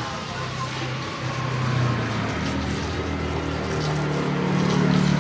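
A motor hums steadily while water is sprayed over a car's engine bay. The hum steps up in pitch twice and grows louder near the end.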